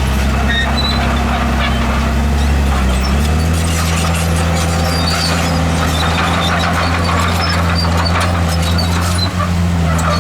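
Komatsu D51PX crawler bulldozer's diesel engine running steadily under load. Its note drops a little about three seconds in, with scattered high squeaks and clinks of the kind steel crawler tracks make.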